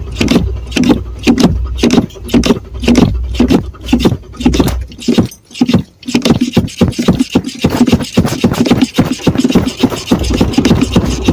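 Car engine cranking on the starter without catching: an even chug-chug of compression strokes. The engine is starved of fuel because the tank has run out of gas. The cranking stops briefly about halfway through, then starts again.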